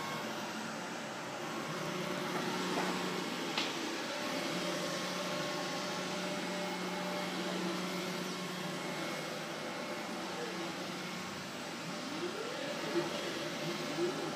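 575 W moving-head stage lights running in automatic mode: a steady whir of their cooling fans under a held low hum. A sharp click about three and a half seconds in, and near the end several short rising whines from the pan and tilt motors as the heads move.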